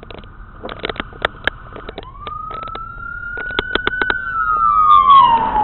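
Emergency vehicle siren wailing: a slow rise in pitch, then a fall as it gets louder and passes close by.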